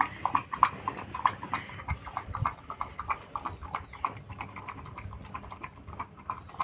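Dog lapping milk from a bowl with its tongue: a steady run of wet laps, about four a second.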